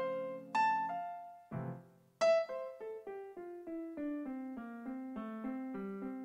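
Background piano music: a few single struck notes, then from about two seconds in a steady run of notes, about three or four a second, stepping downward in the lower line.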